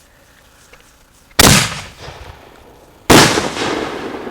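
Two loud firework bangs about a second and a half apart, each sudden and trailing off over a second or so; the second one rings on longer.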